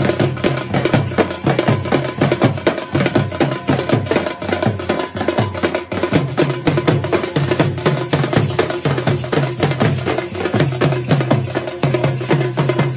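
Folk dance music with fast, steady drumming.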